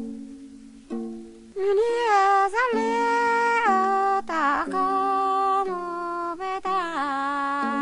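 Paplaw, a Karen bamboo tube zither, plucked in single notes; about a second and a half in, a voice begins singing with a wavering pitch over the zither's plucked accompaniment.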